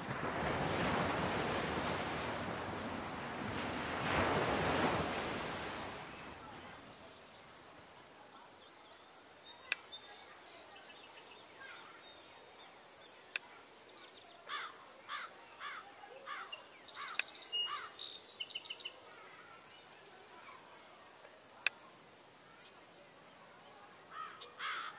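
Two swelling rushes of noise like surf, then faint outdoor ambience with a few single sharp clicks and a string of short chirps in the second half.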